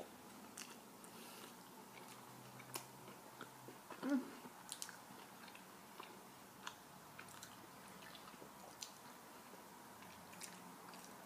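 A person chewing a bite of a soft wrap with the mouth closed: faint, scattered wet clicks from the mouth, with one louder brief mouth sound about four seconds in.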